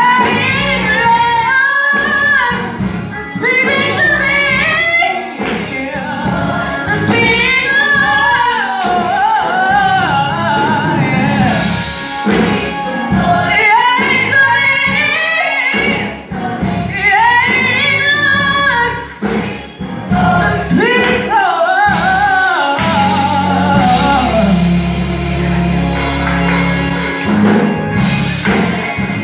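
Gospel-style singing with music: voices carrying a melody with sliding, ornamented notes, and a sustained low bass entering about three-quarters of the way through.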